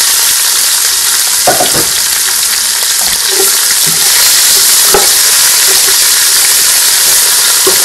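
Sliced onions sizzling loudly in hot oil with whole spices, frying toward brown. A wooden spatula stirs them, knocking and scraping against the pot a few times.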